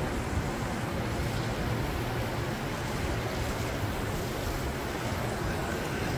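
Steady rushing noise of wind buffeting the microphone, with an uneven low rumble throughout.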